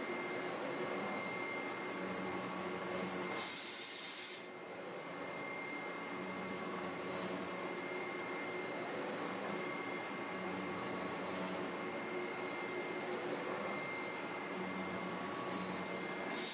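Klingelnberg C29 bevel gear cutting machine dry-cutting a spiral bevel gear: steady machining noise with a thin high whine. A loud hiss about a second long comes in about three and a half seconds in, and again at the very end.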